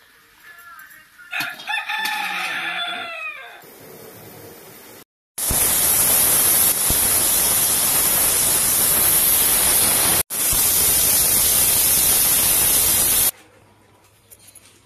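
A rooster crows once, starting about a second in. Then a stovetop aluminium pressure cooker whistles, a loud steam hiss lasting about eight seconds with one brief break, the vent releasing steam once pressure is up.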